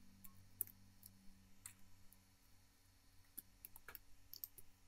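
Faint, scattered small clicks and taps of a metal tool and flex-cable connectors being pressed onto an iPhone 6s logic board, with a short rising squeak about four seconds in.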